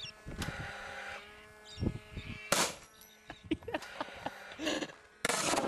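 Cordless gas-powered nail gun firing twice, about three seconds apart, each shot a sharp bang.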